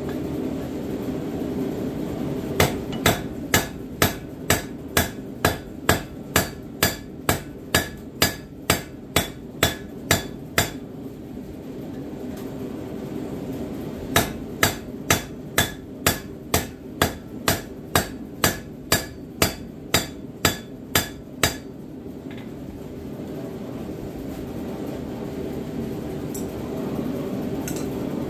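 Blacksmith's hand hammer striking red-hot steel on an anvil to straighten a tomahawk head: two runs of steady, evenly spaced ringing blows, about two or three a second, with a pause of a few seconds between them.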